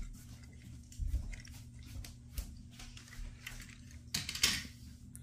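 Die-cast metal toy cars handled in a plastic bin: light clicks and knocks, with a louder clatter lasting about half a second about four seconds in.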